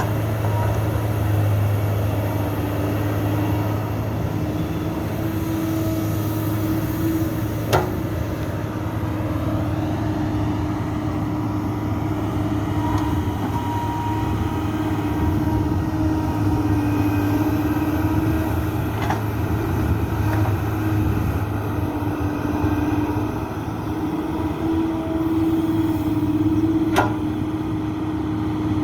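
Excavator diesel engine running steadily under load, its pitch shifting slightly as it works, with two sharp clanks, one about eight seconds in and one near the end.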